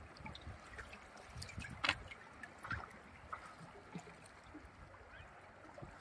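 Wooden boat being paddled through fast river current: faint water lapping and trickling against the hull, with small paddle splashes and knocks, the clearest about two seconds in.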